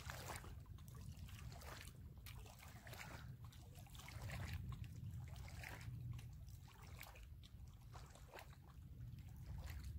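Small waves lapping and splashing against the stones of a rocky lake shore in irregular faint splashes, over a low wind rumble on the microphone.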